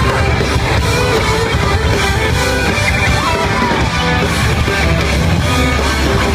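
Rock band playing live: loud, dense guitar-driven music that runs without a break.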